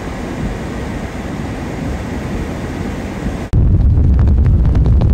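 Strong wind on the microphone: a steady rushing noise that jumps abruptly about three and a half seconds in to a much louder, deeper, irregular buffeting.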